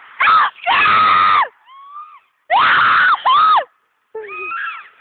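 High-pitched human screaming: two long, loud shrieks about a second apart, with quieter calling voices between them and near the end.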